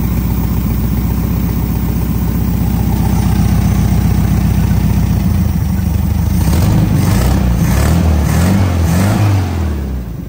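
1972 VW Super Beetle's air-cooled flat-four engine idling steadily, running well on a new coil and distributor. About halfway through, the throttle is worked by hand at the carburetor and the engine revs up and down several times, then eases off near the end.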